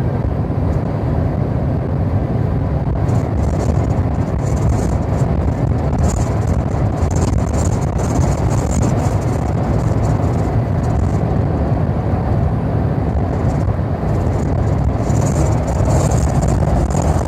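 Vehicle noise: a steady, loud low rumble of a car on the move, with brief faint hissy bursts on top.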